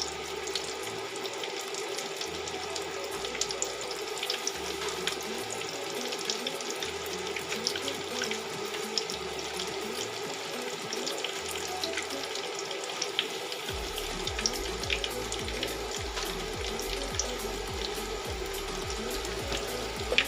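Breaded chicken katsu fillets frying in hot oil: a steady sizzle with scattered crackles. Background music with a bass line plays along and gets heavier about two-thirds of the way through.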